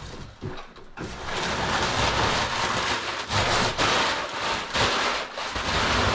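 Crumpled brown packing paper crinkling and rustling as it is pulled out of a cardboard box, a dense continuous rustle that starts about a second in.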